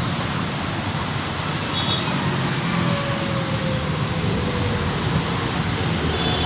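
Steady, distant roar of an Air India airliner's jet engines as it rolls for takeoff, with a faint falling whine in the middle.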